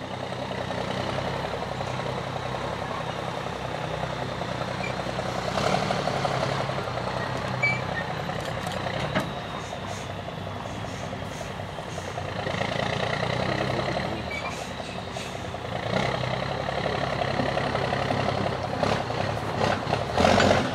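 Diesel engine of a MAN 8x8 trial truck running at low revs as it crawls over rough ground, swelling louder several times as the driver gives it throttle, with a few short clunks.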